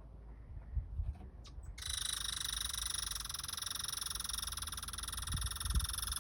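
A steady, rapidly pulsed buzzing call from an animal. It starts suddenly about two seconds in and holds at an even level.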